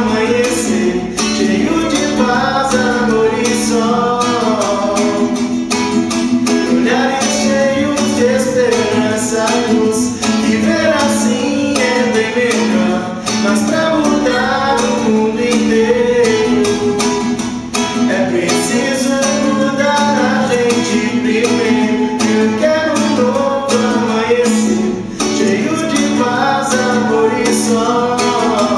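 Nylon-string classical guitar strummed rhythmically, playing the chords of a song.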